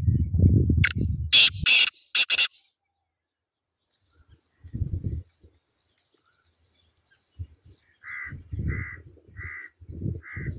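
Black francolin calling: a loud, harsh call of three or four grating notes about a second in. Near the end come four short, evenly spaced, lower-pitched notes. A low rumble runs under the start and returns in short patches.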